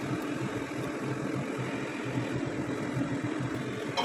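Steady machine-like hum over a rushing noise, from the running kitchen, with a light click near the end.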